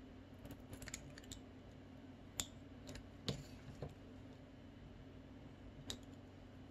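Scissors snipping the flattened end of a plastic drinking straw into a point: a few faint, sharp snips and clicks, the loudest two about two and a half and three and a half seconds in.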